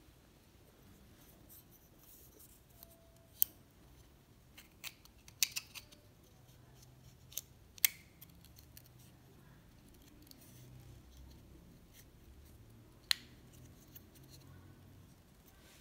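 Scattered sharp clicks and small metallic taps, about eight in all at uneven intervals, from handling a stripped Leica IIIf camera body and its small metal parts.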